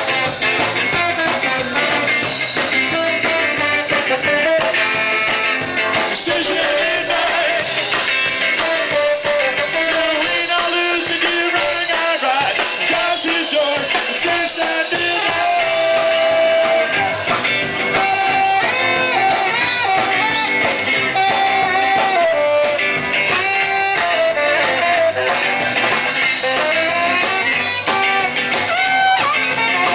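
Live ska band playing an instrumental break, with a tenor saxophone soloing over drums and guitar.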